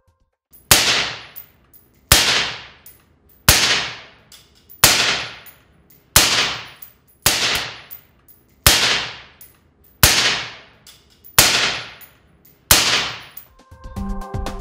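Ten suppressed rifle shots through an SWR Specwar 762 suppressor, fired at a steady pace about one and a half seconds apart, each a sharp crack with a short fading echo.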